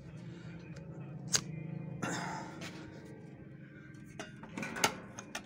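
A few light metallic clinks and knocks from handling at a sewing-machine workbench: one about a second in, and several close together near the end, the loudest of them about 4.8 s in. Faint background music runs underneath.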